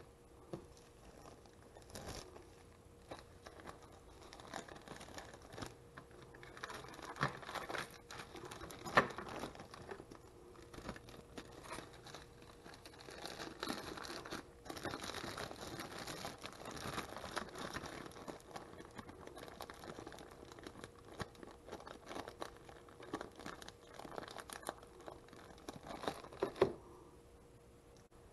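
Thin plastic zip-top freezer bag crinkling and rustling as it is handled and filled with cooked spaghetti squash, with scattered sharp clicks and knocks from the plastic tray. The handling stops shortly before the end.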